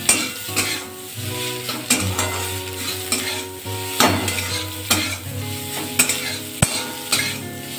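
Soya chunks stir-frying in mustard oil in a metal kadai, with a sizzle, as a metal spatula scrapes and knocks against the pan again and again to toss them.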